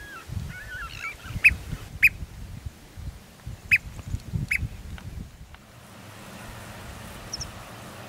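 Birds calling at the coast: four loud, short, sharp calls in the first half, with softer twittering at the start, over gusty wind rumble on the microphone. After about five and a half seconds only a steady hiss and a few faint high chirps remain.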